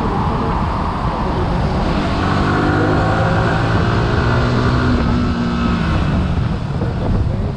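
Yamaha R15 V3's 155 cc liquid-cooled single-cylinder engine pulling in third gear, its note rising steadily as the bike accelerates, then easing off near the end.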